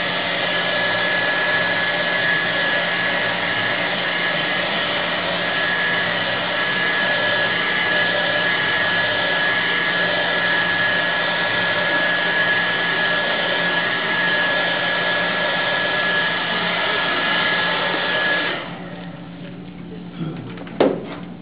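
Hair dryer running steadily with a high whine, drying a wet watercolour wash so the paint won't run. It switches off about three seconds before the end, followed by a short knock.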